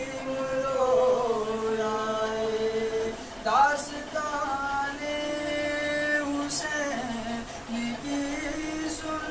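Unaccompanied singing of a salaam, an Urdu devotional poem to Imam Hussain, in long held notes that glide slowly between pitches.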